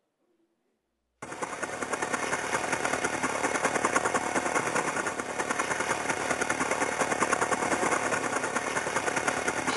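Sustained rapid machine-gun fire, a recorded sound effect, starting abruptly about a second in after near silence.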